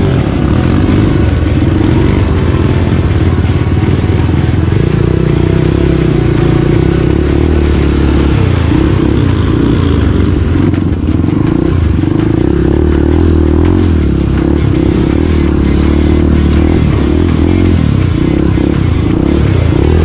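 Dirt bike engine running at low speed, its revs rising and falling unevenly as the bike pushes through grass and wades into a shallow river, with water splashing around it.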